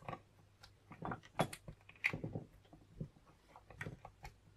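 Irregular small metallic clicks and scrapes of a bicycle spoke, used as a pick, pushing the pins of a Thule roof rack holder's barrel lock while a second spoke holds turning tension on the cylinder.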